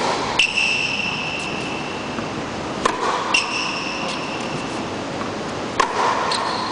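Tennis racket hitting the ball, three hits about three seconds apart. Each hit is followed about half a second later by a second sharp knock that leaves a brief high ringing tone.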